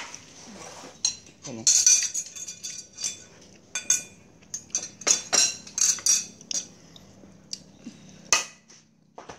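Chopsticks and a spoon clinking and tapping against ceramic plates and bowls while food is picked up and dipped: irregular sharp clinks, busiest about two seconds in.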